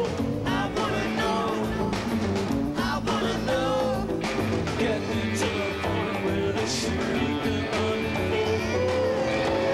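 Live band music: a male lead singer over a full band with guitar and violin, and a long held note near the end.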